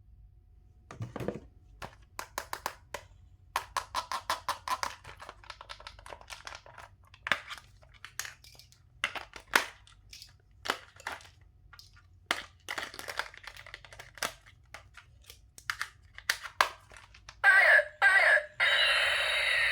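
Toy packaging and plastic being handled: irregular crinkling, crackling and clicking. Near the end a much louder, steady buzzing sound starts, such as a battery toy being switched on.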